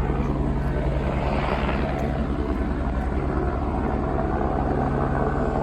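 Sheriff's helicopter flying low overhead, its rotor beating steadily under a low engine drone.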